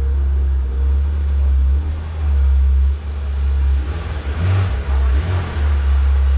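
Porsche 911 R's flat-six engine running as the car rolls slowly across a showroom floor, a steady low rumble with a brief rise in noise about four seconds in.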